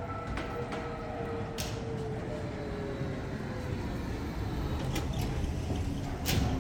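Small electric bus passing close, its motor whining steadily and sinking slightly in pitch as it goes by. A few sharp clicks or knocks sound about one and a half seconds in, around five seconds in and near the end, the last one the loudest.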